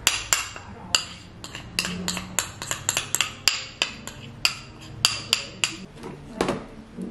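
Kitchen utensil tapping, clinking and scraping against a ceramic bowl and a plastic food container while a whey mixture is scraped onto rice, in irregular sharp taps a few times a second.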